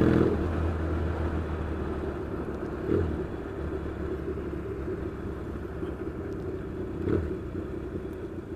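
Yamaha XS650 parallel-twin engine running steadily at easy revs through pipes that are a bit on the loud side, heard while the bike is being ridden. The engine has freshly fitted piston rings and is being run in gently. The sound is loudest at the start and eases off gradually over the first couple of seconds.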